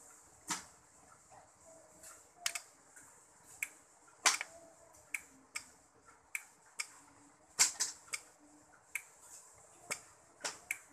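Tronic TR-250 studio flash firing by itself again and again, giving sharp pops at irregular intervals, sometimes two in quick succession, over a faint steady high whine. This is the unit's fault: the flash keeps triggering on its own, which the repairer attributes to a controller error.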